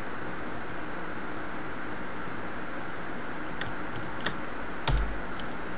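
Scattered faint computer keyboard and mouse clicks over a steady background hiss, with one louder click and thud near the end.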